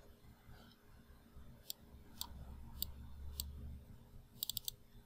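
Computer mouse clicking: single clicks about every half second, then four quick clicks in a row near the end.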